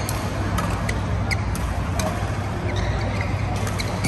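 Badminton hall ambience: a steady low hum with scattered sharp clicks of rackets hitting shuttlecocks and brief squeaks of court shoes on the mat.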